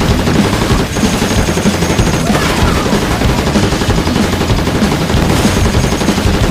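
War-film battle soundtrack: loud, continuous rifle and machine-gun fire, with shots overlapping densely and no break.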